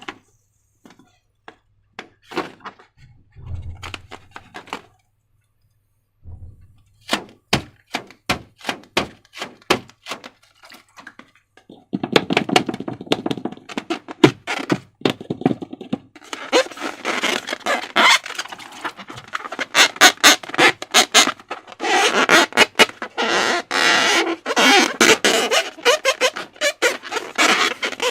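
Slime being worked by hand: a run of sharp, sticky clicks and squelches, sparse at first, then dense and louder from about halfway through.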